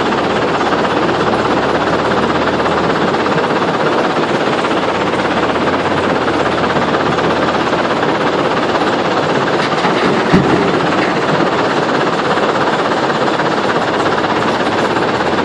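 Heavy diesel construction machinery running steadily, with a single knock about ten seconds in.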